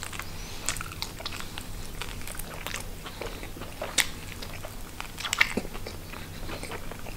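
A person biting and chewing a sprat, a small oily fish, with a run of short sharp mouth clicks; the loudest come about four and five and a half seconds in.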